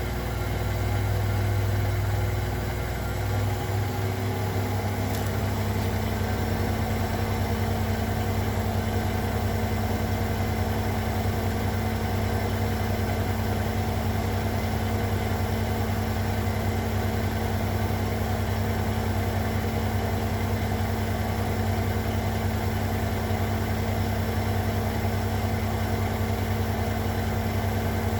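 Zanker EFX 4875 front-loading washing machine in its final high-speed spin, set to 1800 rpm: a steady motor and drum hum with a deep low drone. The pitch shifts slightly about three to four seconds in, then holds steady.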